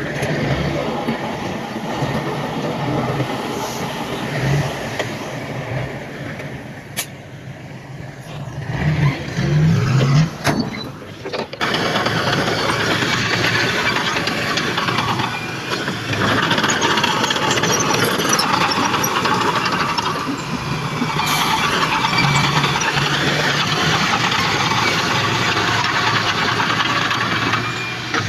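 Heavy earthmoving machinery running, engines working steadily. About nine seconds in the engine noise surges louder, and shortly after the sound changes abruptly to a different steady machine noise.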